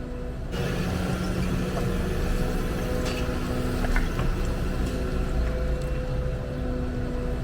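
Hyundai excavator's diesel engine running under hydraulic load, heard from the cab, the engine note growing louder about half a second in, with a couple of brief clicks partway through.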